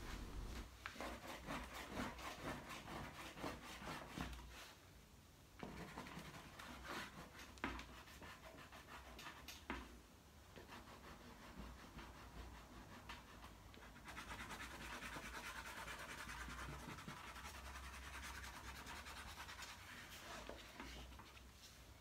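Faint scratching and rubbing of a wet paintbrush worked across paper, blending paint, with a few light taps; the strokes become a steadier scrubbing about two-thirds of the way in.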